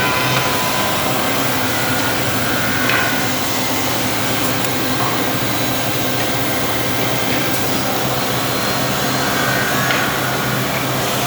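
Automatic two-head drilling machine with workpiece feed running: a steady mechanical drone of its motors, with a couple of brief higher-pitched scrapes about three and ten seconds in.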